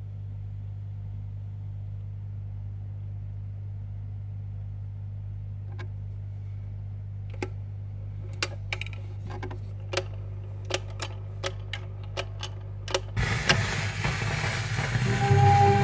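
Playback of a shellac 78 rpm record starting: a steady low hum, then a run of sharp clicks and pops from the stylus in the groove. About two seconds before the end the record's crackly surface noise comes up loudly and the first notes of the music begin.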